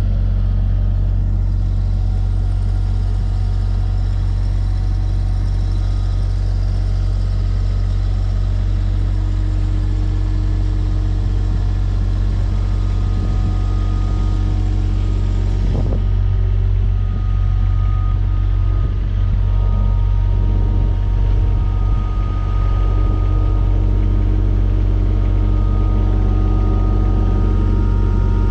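Diesel engine of a JCB 8025 mini excavator running steadily, a constant low rumble that hardly changes in level.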